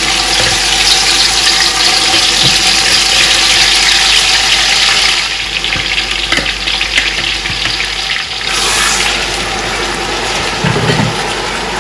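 Blended tomato and pepper purée frying in hot rapeseed oil in a large stainless steel pot: a loud, steady sizzling hiss as the wet purée hits the heated oil, easing a little about halfway through. A few light knocks of a silicone spatula scraping the purée in and stirring.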